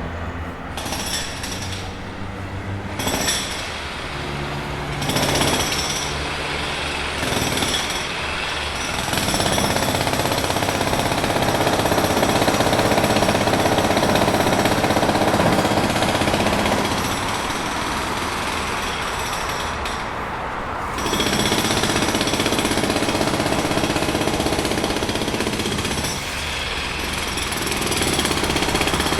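Jackhammer hammering rapidly and continuously, with a few brief shifts in the first several seconds before settling into long unbroken runs.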